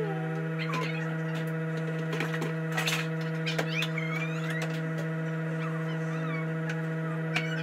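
A steady hum with a stack of even overtones, with short bird-like chirps and a few sharp clicks over it.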